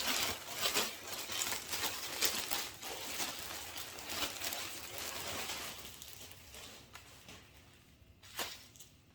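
Plastic packaging crinkling and rustling as clothes are unpacked, a dense crackle that dies down about six seconds in, followed by a single sharp tap near the end.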